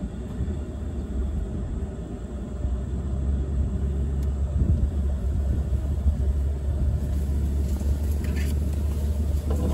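Pickup truck engine and drivetrain heard from inside the cab: a steady low rumble as the truck pulls in gear up a steep, bumpy dirt hill, getting a little louder about three seconds in.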